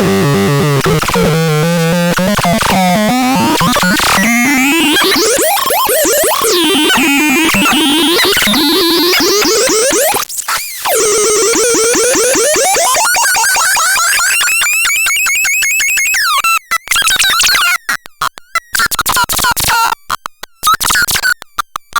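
Synthesizer sound demo: electronic tones with several pitches sweeping up and down in glides. About halfway through, the sound drops out briefly. In the last quarter it is chopped into rapid stuttering on-off pulses.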